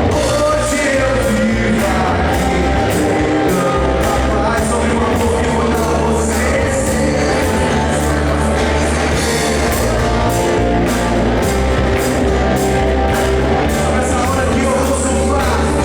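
Live worship band playing in a rock style, with drums keeping a steady beat under bass and guitars, and voices singing over it.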